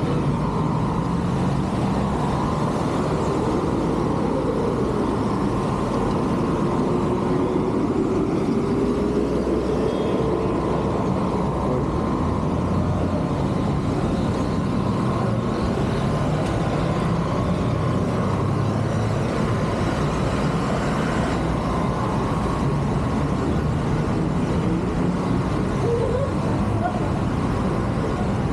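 Busy city street traffic: motor vehicles running close by in a steady wash of engine and road noise, with one engine's pitch rising and falling several seconds in.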